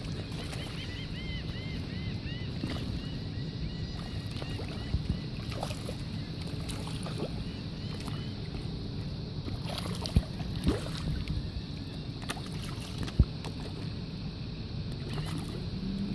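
Steady low rumble and hum of a boat motor running over lapping water, the motor's pitch rising near the end. Drum and redfish feeding at the surface make a few sharp splashes, and a bird gives a quick series of chirps about a second in.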